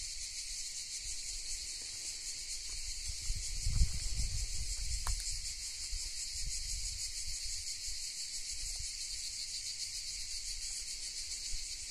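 Steady, high-pitched chorus of cicadas shrilling without a break. A brief low rumble on the microphone about four seconds in.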